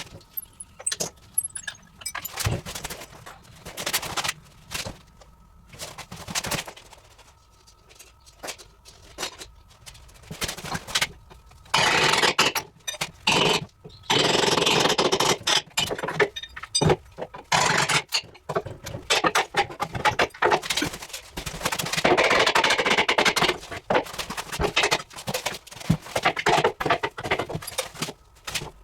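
Handling and clearing-out noises: a run of scattered knocks and clatter, with longer stretches of scraping or rustling about twelve seconds in and again past the twenty-second mark.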